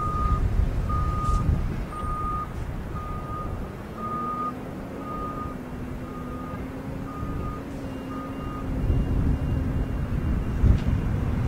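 Vehicle reversing alarm beeping about once a second on one steady pitch, stopping about nine seconds in, over a steady low engine rumble whose hum rises slightly in pitch about four seconds in.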